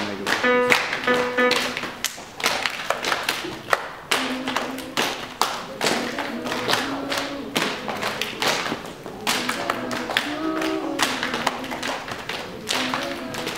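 An a cappella choir's body-percussion routine: many sharp claps, stomps and taps on a wooden floor, with a few short sung notes between them.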